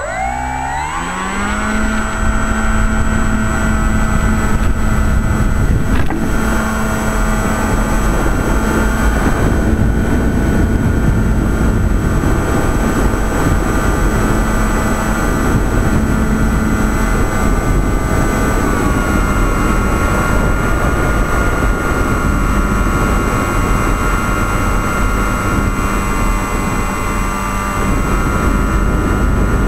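Motor and propeller of a float-equipped model airplane spinning up from rest to full throttle over the first couple of seconds, then running with a steady whine over rushing wind and airflow noise; the pitch shifts slightly about two-thirds of the way through.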